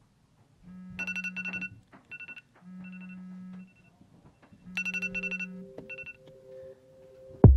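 Smartphone alarm going off: the phone buzzes against the surface in three pulses of about a second each while the alarm tone beeps in quick groups. About two-thirds through, a steady low tone comes in, and a loud thump comes at the very end.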